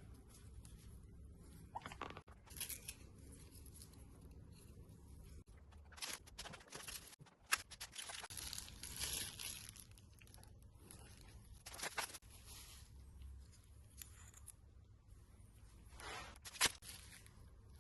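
Packaging being torn open and handled, rustling and tearing in short irregular spells, with a couple of sharp clicks.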